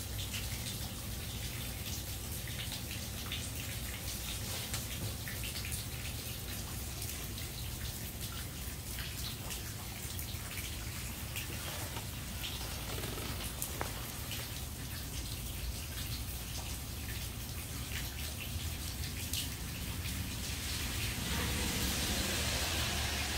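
Steady rain falling, with many small drip and drop ticks. Near the end the hiss swells as a car passes on the wet street.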